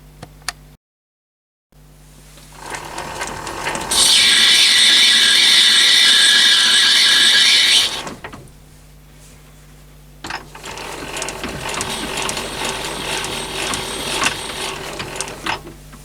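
Myford lathe running under power through its change gears, taking thread-cutting passes. A loud, steady gear whine lasts about four seconds near the middle, and a rougher, quieter run comes near the end.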